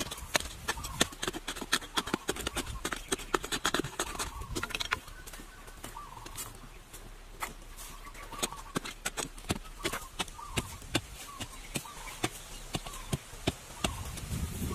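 A run of sharp clicks and knocks at an uneven pace, thickest in the first five seconds and sparser after.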